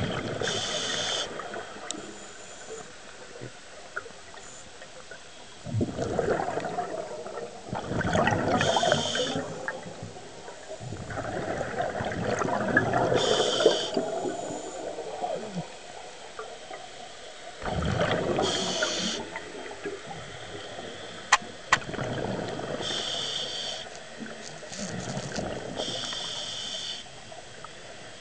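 Scuba diver breathing through a regulator underwater: about six breaths, each a short hiss of the regulator on the inhale and a longer rush of exhaled bubbles, some four to five seconds apart. Two sharp clicks about three-quarters of the way through.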